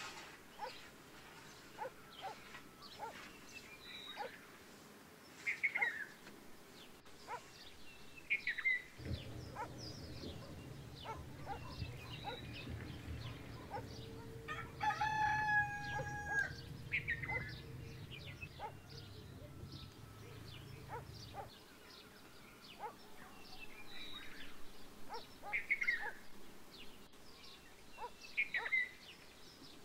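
A rooster crows once, a long held call about halfway through, over small birds chirping on and off. A low steady hum runs through the middle third.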